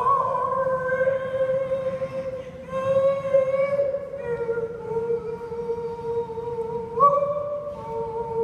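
Elderly woman singing solo into a handheld microphone, holding long drawn-out notes, with a brief step up in pitch near the end.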